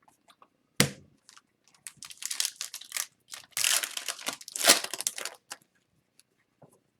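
Trading card pack wrapper and cards being handled: crinkling and rustling of the packaging, with a sharp click a little under a second in and the loudest crinkling in the middle.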